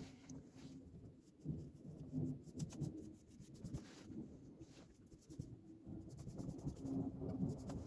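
Faint, rapid scratching and rubbing of a paintbrush working paint onto a surface, many short strokes close together.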